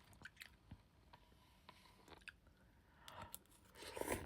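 Close-up mouth sounds of someone chewing instant pot noodles: soft scattered wet clicks, with a louder wet sound near the end.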